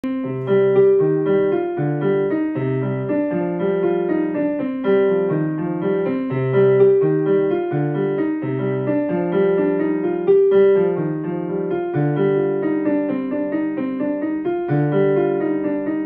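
Background music: an electric piano tune with lower bass notes beneath the melody.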